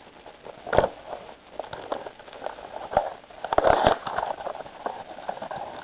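A trading-card blaster box and its packaging being torn open and handled: irregular crackling and rustling with sharp clicks, busiest about three and a half to four seconds in.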